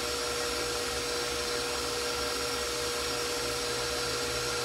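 Bowl-lift electric stand mixer running at high speed with a constant motor whine, whipping a homemade marshmallow mixture.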